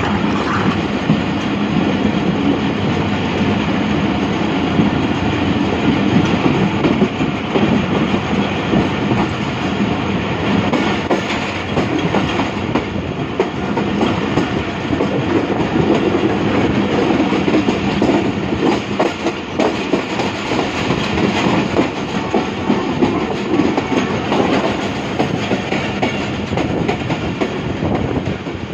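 Pakistan Railways passenger train heard from an open coach window as it gathers speed: the steady rumble of steel wheels on the rails, with the clickety-clack of the rail joints running through it.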